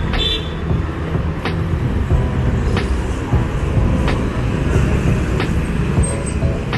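Steady road traffic: a dense low rumble of cars and motorbikes moving past, with a sharp tick about every second and a half.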